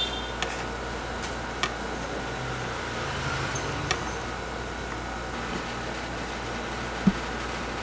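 Steady hum of room ventilation, with a few faint clicks and one dull knock about seven seconds in from knife work on beef ribs at a cutting board.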